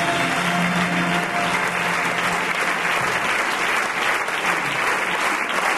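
Theatre audience applauding steadily, with music fading out under the clapping in the first second or two.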